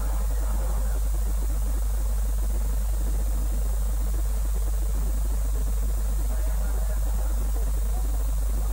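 Steady low hum with a faint hiss over it.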